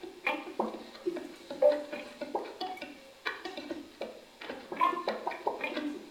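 Electric guitars playing scattered, irregular plucked notes, each ringing briefly before the next.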